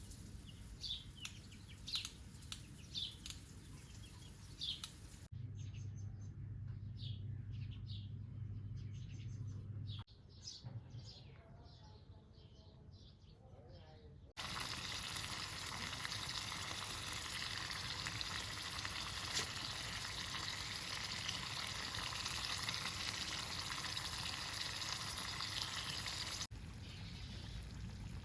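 Birds chirping in short calls, with a low steady hum through part of it. Then a loud, steady sizzling hiss of food frying over a wood fire lasts about twelve seconds and cuts off abruptly.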